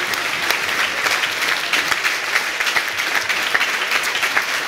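A large audience applauding: many hands clapping at once in a dense, steady patter.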